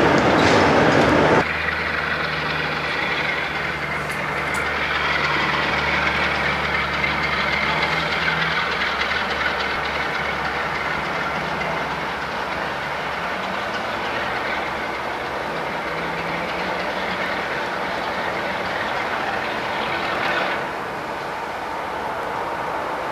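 A train passing close and loud for about a second and a half, cut off suddenly, then a Class 47 diesel locomotive's Sulzer engine running with a steady low hum as it approaches hauling a train of hopper wagons.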